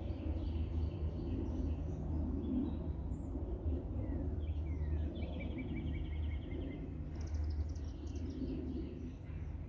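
Small birds chirping and twittering, with a trill of rapidly repeated notes about five to eight seconds in, over a steady low rumble.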